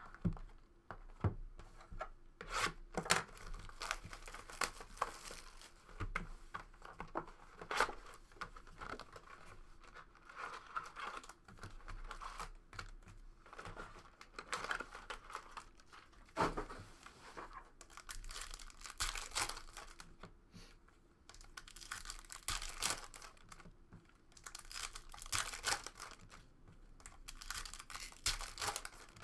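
Trading-card pack wrappers being torn open and crinkled by hand: repeated sharp rips and bouts of crackling rustle.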